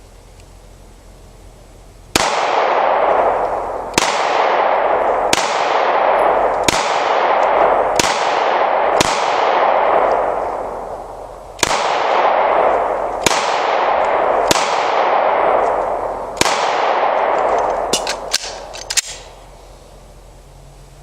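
Taurus 9mm pistol firing ten shots at an irregular pace, about one every one to two seconds, with a longer pause after the sixth. Each shot trails off in a long rolling echo. A few light clicks follow near the end.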